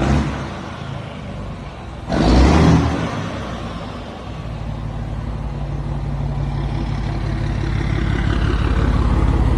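Scania 112 truck's inline-six diesel running through a straight-pipe exhaust, a deep steady rumble that grows gradually louder over the last few seconds. A short loud burst of noise comes about two seconds in.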